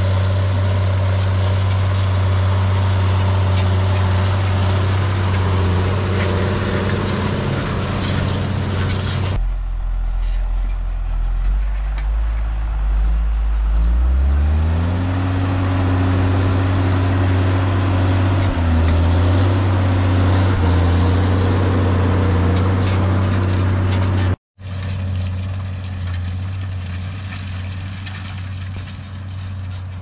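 John Deere 6175M tractor's six-cylinder diesel engine running steadily under load while ploughing. The sound changes abruptly about a third of the way in, the revs rise about halfway through, and there is a short dropout near the end, after which the engine is quieter.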